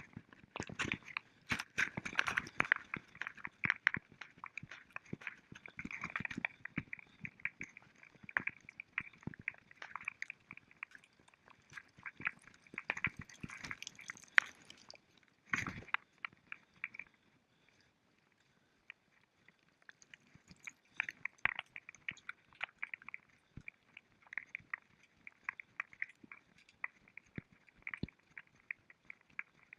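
Crunching footsteps, dense and irregular, stopping for a few seconds a little past halfway before starting again.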